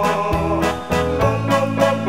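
Background music: held keyboard chords over a steady beat.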